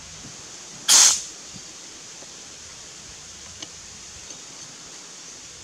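A short, loud hiss of escaping CO2 gas about a second in, as a gas cylinder is fitted to the air rifle, followed later by a few faint clicks.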